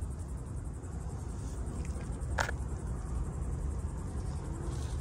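Outdoor background: a steady low rumble with a faint high-pitched buzz, and one sharp click about two and a half seconds in.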